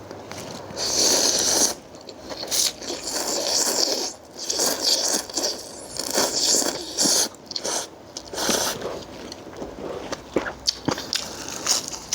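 Close-up eating sounds: a person chewing and crunching through spicy Thai seafood salad with instant noodles, in irregular bursts with short wet clicks.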